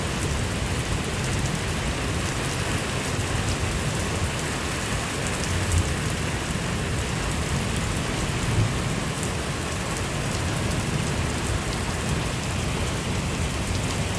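Steady rain falling in a thunderstorm, an even hiss with the patter of drops, and two brief louder taps about six and nine seconds in.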